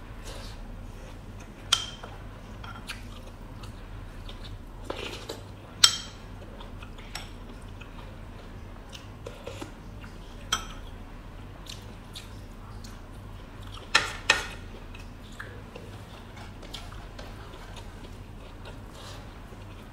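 Close-miked mukbang eating: a woman chewing a mouthful of rice and chicken, with wet mouth sounds and a handful of sharp smacks and clicks, the loudest about six seconds in, over a faint low hum.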